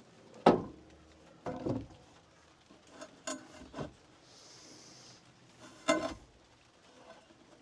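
Knocks and thuds of wooden boards and gear being handled and set down, several separate hits with the loudest about half a second and six seconds in, and a brief hiss near the middle.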